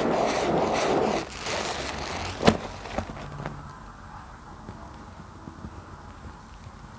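Wet squishing of a soap bar being lathered in thick soapy foam for about the first second, fading after it. A sharp tap comes about two and a half seconds in, followed by faint small crackles from the foam.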